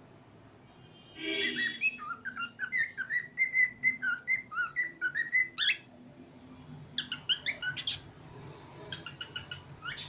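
Cockatiel singing: a quick run of chirpy warbled whistles lasting about four seconds, then two shorter whistled phrases near the end.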